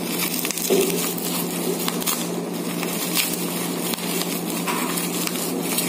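Plastic bubble-wrap packaging rustling and crinkling under the hands as it is pulled and twisted in an effort to tear it open, with scattered small crackles.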